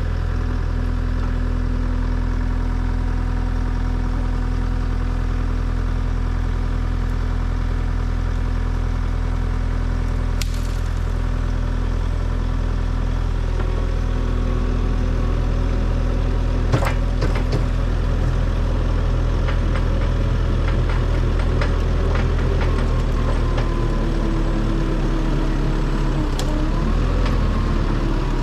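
Skid steer engine running steadily while the loader works the forks to winch the machine out of the mud on a rope and snatch block. There are a few sharp clicks or knocks, and near the end a whine that bends up and down as the load changes.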